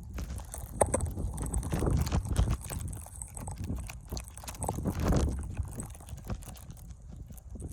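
Snowstorm wind gusting on the microphone, a rumble that swells and fades, mixed with irregular crunching and knocks.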